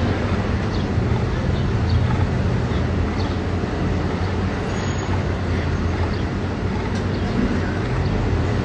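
Steady street traffic noise: a continuous low rumble of passing and idling vehicles.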